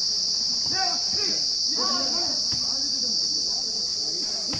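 Steady, loud, high-pitched drone of insects in the surrounding trees, with players shouting briefly about a second in and a sharp slap of a volleyball being hit near the end.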